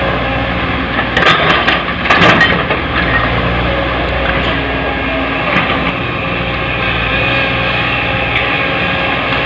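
Heavy diesel machinery running steadily, with a cluster of loud knocks and clatter from about one to two and a half seconds in and a few lighter knocks later: rock and hard soil falling into a dump truck's steel bed as an excavator loads it.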